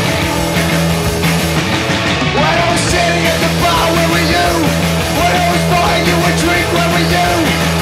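Punk rock band playing live and loud: electric guitars, bass guitar and drums.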